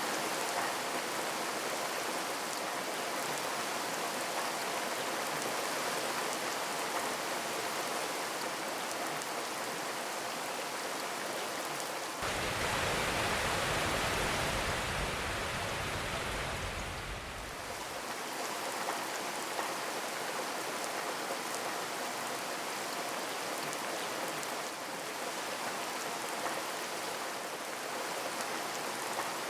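Steady rain falling on a zinc roof, an even pattering hiss with no thunder. About twelve seconds in it turns fuller and deeper for roughly six seconds, then settles back.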